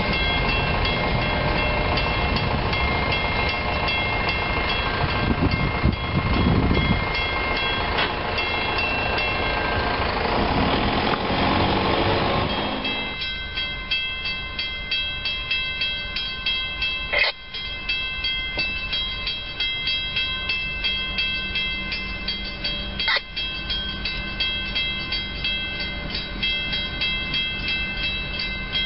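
Freight train's boxcars rolling past, with a steady rumble and wheel clatter. About twelve seconds in, this gives way to a bell ringing in quick, even strokes, two to three a second, as a train approaches.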